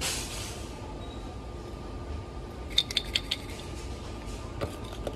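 A small metal can of jelly beans being handled: a brief rustle at the start, then a quick cluster of light metallic clinks and taps about three seconds in and a few more near the end, over a faint steady hum.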